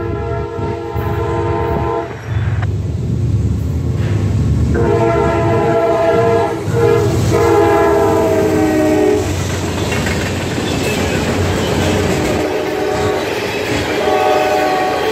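Freight train led by Norfolk Southern GE Dash 9-40CW and Dash 9-44CW diesel locomotives sounding its air horn in two long blasts, the second starting about five seconds in, as the locomotives pass close by. Then tank cars roll past with steady wheel and rail noise, and the horn sounds again, fainter, near the end.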